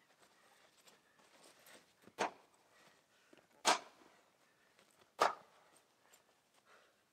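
A long wooden pole swung and handled: three loud, short strokes about a second and a half apart, with smaller knocks and rustles between them.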